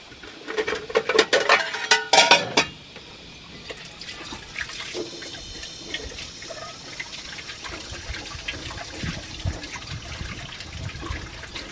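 Dishes or utensils clattering in a stainless steel sink for about two and a half seconds, then water running steadily from a tap into the sink.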